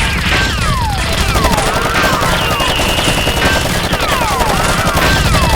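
Rapid gunfire sound effects, a continuous rattle of shots. Falling and arching whistle-like glides repeat about every second and a half, like a looped soundtrack.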